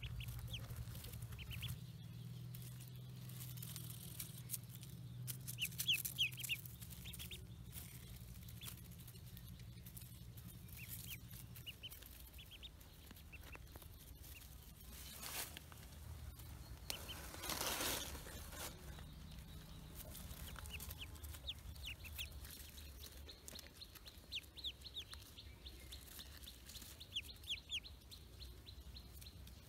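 Ducklings peeping: short runs of high-pitched, falling peeps that come and go. Two brief rustles of handling come about halfway through.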